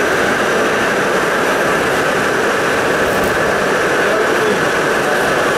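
R68 New York City subway car running through the tunnel, heard from inside the car: a steady, loud rush and rumble of the moving train that holds even throughout.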